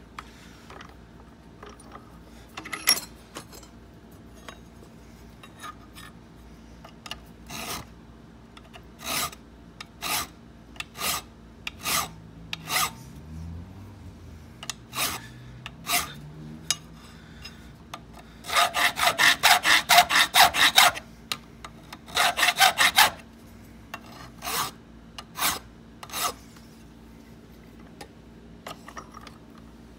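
Hand file rasping across the bit of an antique bit key clamped in a vise, cutting the ward notches. Single strokes about a second apart give way to two fast, louder runs of short strokes about two-thirds of the way through, then a few more single strokes.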